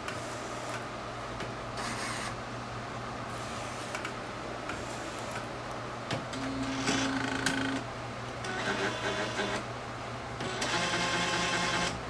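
Inkjet printer mechanism whirring in several short bursts as the print head moves over and parks at the maintenance station. The loudest burst comes near the end and is the noisiest, a hissy whir at the station, where this printer makes a gas-leak-like hissing that the owner blames on the maintenance station.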